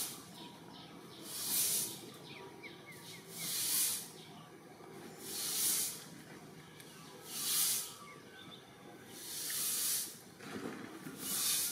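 A hissing noise that swells and fades about every two seconds, five times over, over a faint steady background.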